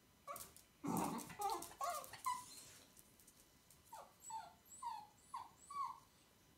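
Small dog giving short high-pitched yips and whimpers in two bouts: a louder cluster in the first couple of seconds, then about six short falling yips near the end.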